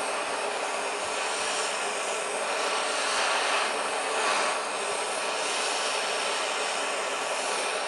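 Gas torch burning with a steady hissing rush as its flame heats the end of a connecting rod, expanding it for a press fit onto the piston pin. The rush swells slightly midway.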